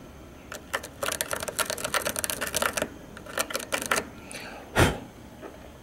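Screwdriver tip scraping and picking dirt out of a clogged Torx screw head on a car bumper, heard as a rapid run of metal clicks for about two seconds, then a few more. A single louder thump comes near the end.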